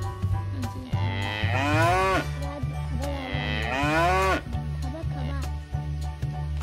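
Cow mooing twice, each a long call of a little over a second that rises and then falls in pitch, over background music with a steady beat.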